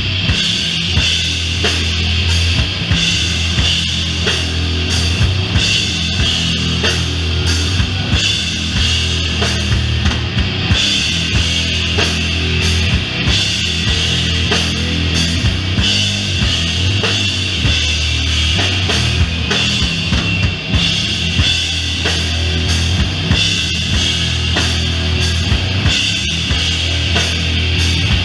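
Doom metal band playing live with no vocals: a loud, heavy, low riff held over a steady drum beat with bass drum and snare.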